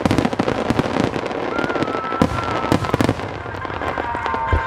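Aerial fireworks shells bursting in a dense display: continuous crackling of many stars with repeated booms, the loudest about two seconds in. A thin steady whistle sounds through the middle.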